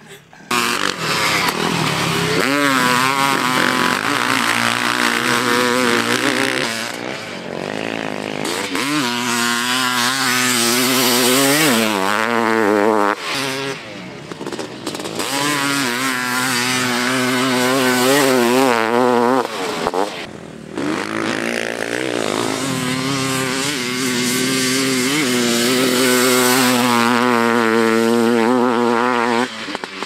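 Honda CR500 dirt bike's 491 cc single-cylinder two-stroke engine ridden hard, revving up and down as the throttle is worked through the gears. The engine sound drops out briefly about halfway through and again about two-thirds of the way through.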